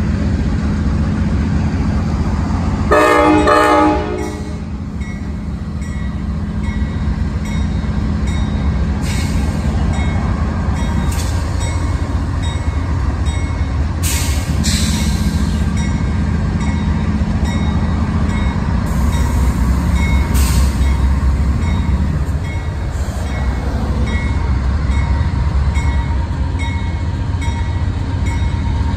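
Amtrak GE Genesis diesel locomotives hauling a passenger train past at low speed: a steady low diesel rumble, with one short horn blast about three seconds in and a few sharp clicks along the way.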